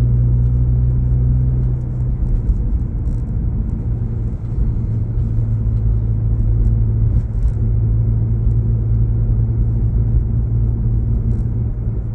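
Low rumble of a car's engine and tyres heard from inside the cabin while driving, a steady engine hum at first that turns rougher about two seconds in.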